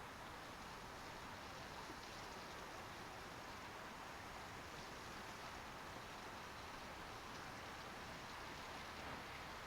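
A steady, even hissing noise with no distinct tones or separate events. No trumpet-like or pitched sound is present.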